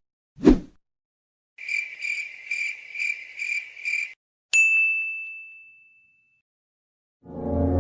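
A brief thump, then the cricket-chirping sound effect: about six evenly spaced high chirps over some two and a half seconds. A single bright ding follows and rings out for about a second and a half, and music starts near the end.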